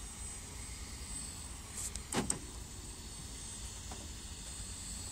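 A sleeping person snoring once, a short noisy snore about two seconds in, over steady background hiss with a thin high whine.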